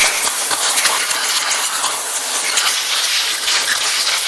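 Compressed-air blow gun blasting air through the oil passages of a bare, freshly washed air-cooled Porsche flat-six magnesium engine case to dry out the cleaning solvent: a loud, steady hiss.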